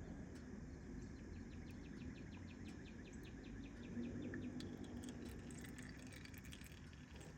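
A rapid, evenly spaced chirping trill, about nine chirps a second, lasting a couple of seconds, then scattered higher chirps and clicks, over a faint steady hum.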